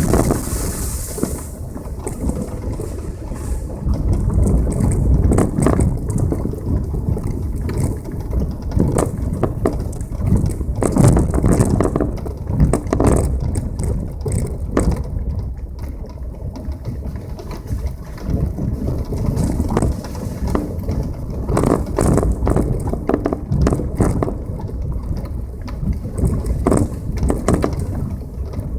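Passenger car driving over a rough stony dirt road: tyres crunching on gravel, with irregular knocks and bumps throughout.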